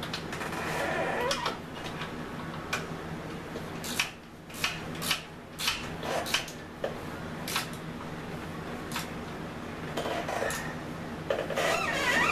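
Hand tools clinking on steel suspension parts while a lower control arm bolt is being fitted: scattered sharp metallic clicks and knocks, irregularly spaced, over a steady low hum.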